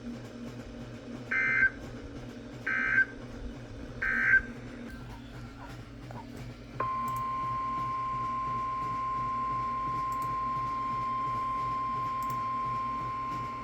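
NOAA Weather Radio alert signalling: three short, buzzy digital SAME data bursts about a second and a half apart, the end-of-message code closing a warning. About seven seconds in, the steady 1050 Hz weather radio warning alarm tone starts abruptly and holds one pitch.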